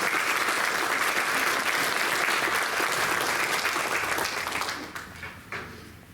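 Audience applauding. The clapping dies away about four and a half seconds in, leaving a few last claps.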